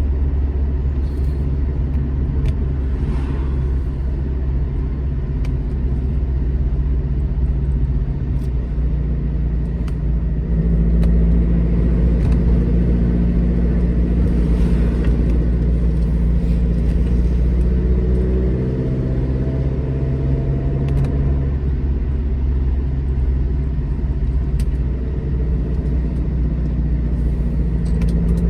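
Alfa Romeo GT Junior's twin-cam four-cylinder engine pulling the car along a road: a steady engine drone that grows louder about ten seconds in, with the engine note rising as it accelerates roughly two-thirds of the way through.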